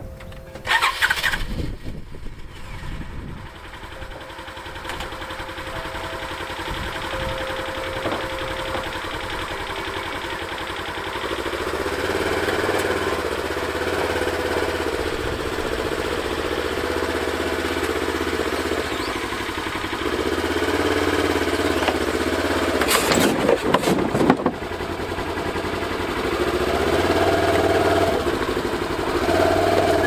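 Polaris Ranger XP 1000 UTV's twin-cylinder engine started, then running and revving as the machine is driven in reverse, backed partway down off a flatbed trailer. It surges twice, and there are a few sharp metallic clunks about two-thirds of the way through.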